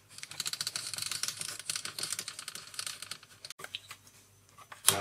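A quick run of light, rapid metallic clicks and rattles from the stopped mini metal lathe, as its tool post is wound back from the work and the tool and its stainless chips are handled. The clicking is dense for about three and a half seconds, then thins to a few stray clicks.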